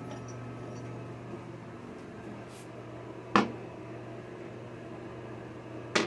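A steady low hum, with a sharp click about three seconds in and another at the very end. No flush is heard.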